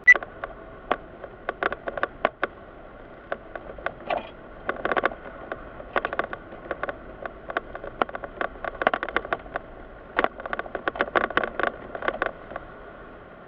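Bunches of quick, irregular clicks and crackles inside a moving car, the sharpest one right at the start, over the cabin's low steady hum. The clicks stop shortly before the end.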